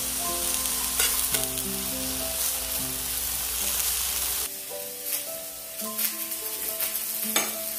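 Sliced vegetables and oyster mushrooms sizzling on a dry griddle pan with no oil, cooking in the water the mushrooms have released, with tongs clicking against the pan. The sizzling drops away about four and a half seconds in, and soft background music with held notes plays throughout.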